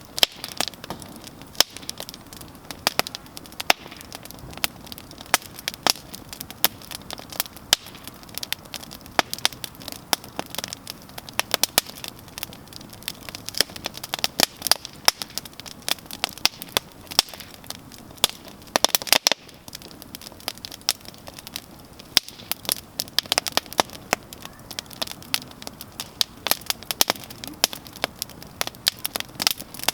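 Campfire crackling: wood burning with frequent irregular sharp pops and snaps over a soft steady hiss, with a quick cluster of louder pops about two-thirds of the way through.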